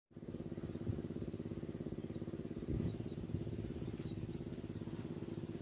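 A small engine idling steadily with an even, fast firing pulse, and a few faint bird chirps over it.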